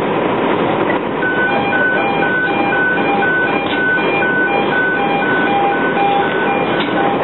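Steady loud rumble at a fully involved semi-trailer fire, with running engines and the fire itself. An electronic alarm beeps about twice a second from about a second in until near the end.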